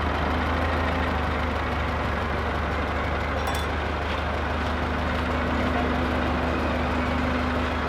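Truck engine idling steadily, a low, even rumble with a faint steady hum above it.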